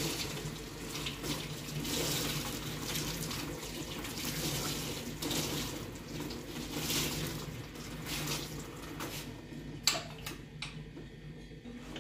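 Running water, its noise rising and falling unevenly; a single sharp knock about ten seconds in, after which it is quieter.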